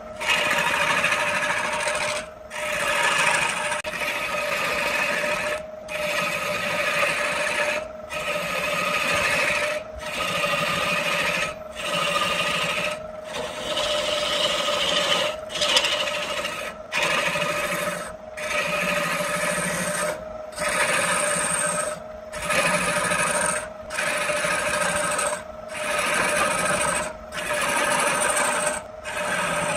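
A tool working wood in repeated rasping strokes, each about a second and a half long with a brief break between them, over a steady machine whine.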